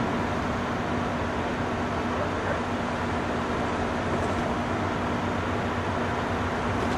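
Steady low mechanical hum with a constant drone under an even background rush, unchanging throughout.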